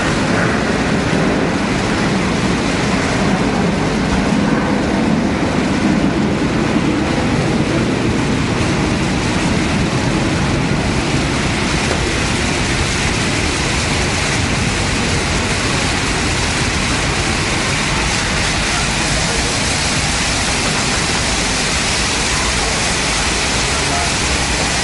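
Steady rushing and splashing of water from rows of small ground-level fountain jets spraying up from a paved floor, with a low rumble underneath for about the first ten seconds.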